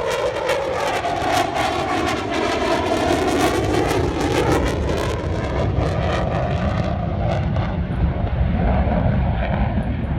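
An aircraft making a low pass over the crowd: loud engine noise whose pitch falls as it goes by. The sharper high part of the sound dies away about halfway through, leaving a low rumble.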